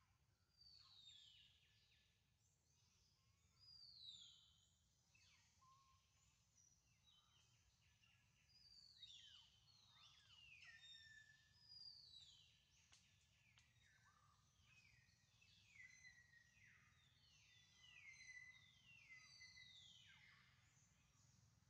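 Faint birdsong: many short whistled calls, each sliding down in pitch, overlapping and coming more thickly from about eight seconds in, over a low steady background rumble.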